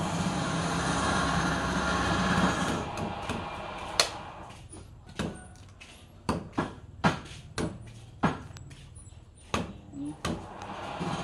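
Wood lathe running with a steady rumble that fades away over the first few seconds as it stops. Then comes a sharp click and a run of separate sharp knocks, about one a second, as a steel turning tool strikes the large wooden disc mounted on the lathe.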